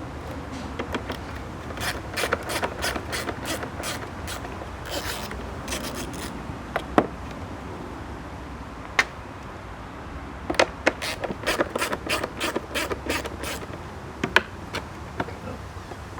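Ratchet wrench clicking in quick runs as bolts on a push mower are worked loose, with two sharper single clicks in the pause between the runs.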